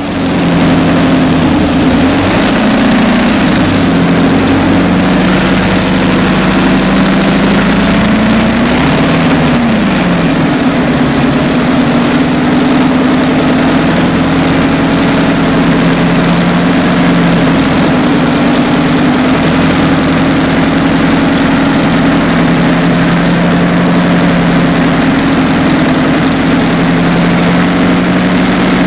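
Detroit Diesel 12V149T twin-turbocharged two-stroke V12 diesel running at a steady idle. About nine seconds in it revs up briefly and falls back.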